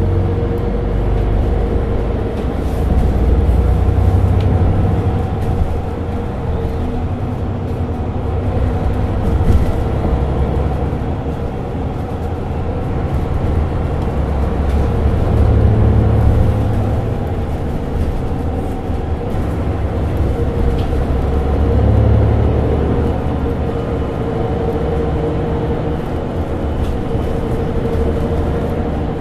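Mercedes-Benz Citaro G articulated bus's diesel engine idling while the bus stands still: a steady low rumble with a constant hum above it, swelling in loudness three times.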